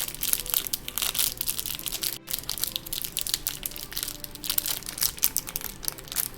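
Disney Doorables toy packaging being torn and crinkled by hand: a dense, continuous run of crackles and crunches, with a brief break about two seconds in.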